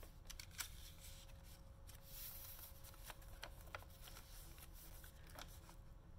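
Faint rustling of paper and card as the pages and a folded paper insert of a handmade journal are handled and turned, with a few light ticks and a short swish of paper sliding about two seconds in.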